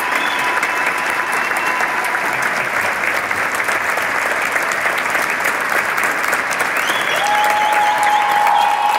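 A large concert audience applauding at length in a standing ovation, dense continuous clapping with a few long held cheers over it. The applause swells about eight seconds in.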